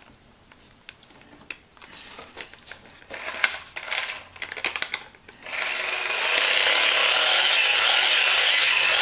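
K-Tor Pocket Socket 2 hand-cranked generator: clicks and rattles as it is handled and the crank is readied, then, a little past halfway, a steady, loud whir of its gearing as it is cranked to charge a dead MP3 player.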